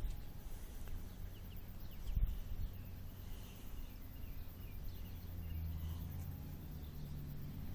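Open-field ambience: a steady low rumble with faint bird chirps, and a soft thump about two seconds in.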